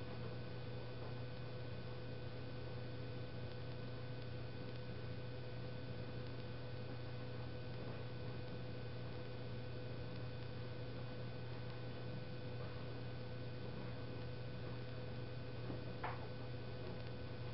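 Steady low electrical hum with a faint high-pitched whine above it, and a single faint tick about sixteen seconds in.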